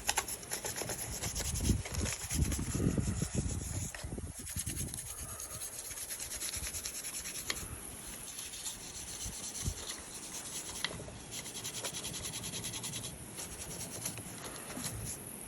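Rapid back-and-forth rubbing strokes on a NERF blaster's plastic during cleaning, with heavier handling noise about two to three seconds in.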